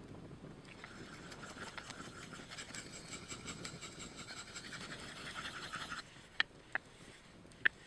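A Scandi knife blade scraping rapidly over a handheld round puck whetstone as it is sharpened. The scraping stops abruptly about six seconds in, followed by three sharp clicks.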